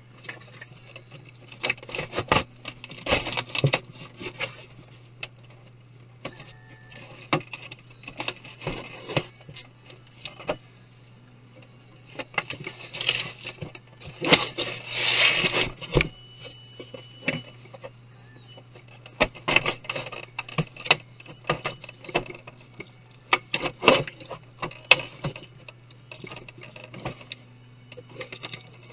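Hands and tools working on a computer's plastic and metal parts during disassembly: scattered sharp clicks, taps and short scrapes, with a longer stretch of scraping about halfway through, over a steady low hum.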